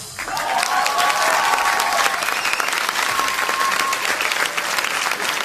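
Audience applauding: dense, steady clapping, with a few voices calling out over it.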